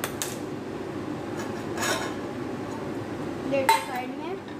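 Kitchen clatter as a glass lid is taken off a flat pan on the stove: a few light clinks, then a louder clink with a short ring near the end.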